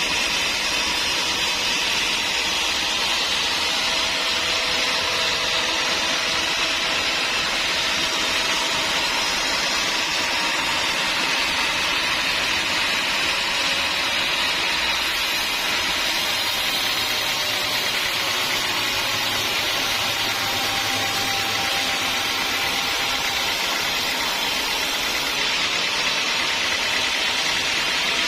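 Sawmill saw running with a steady, unbroken high-pitched rushing noise, holding the same level throughout.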